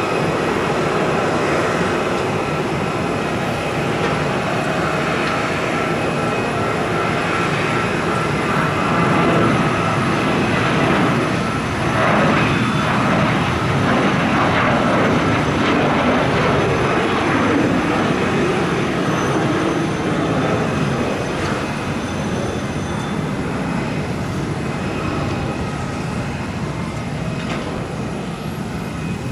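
Boeing 737-700 airliner's CFM56 jet engines running, a steady jet rush with a high whine from the fans over it. It swells to its loudest about a third of the way in, then slowly eases off.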